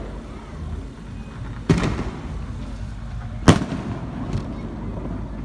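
Fireworks going off: two sharp bangs about two seconds apart, then a fainter pop.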